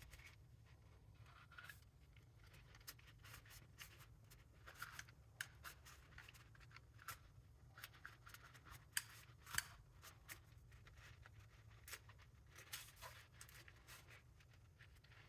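Faint, scattered clicks and light scratches of small metal brake parts being handled and wiped, over a low steady hum. This is the work of cleaning out a motorcycle front brake master cylinder.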